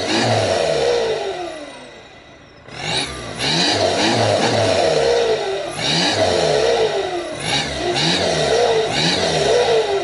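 VW Passat B6 1.9 TDI diesel with a straight-pipe exhaust (de-catted, no silencers), blipped through a series of quick free revs. Each rev rises and falls sharply, with a lull about two seconds in.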